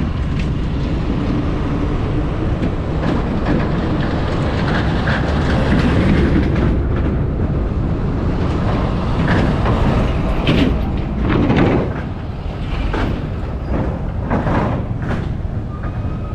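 Motorcycle riding over a rough, broken road: a steady engine-and-wind rumble with frequent rattles and knocks as the bike jolts over the surface.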